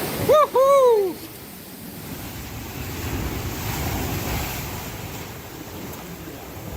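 Surf and wind rushing on the microphone, broken just after the start by a loud, short cry from a person: two rising-then-falling shouts.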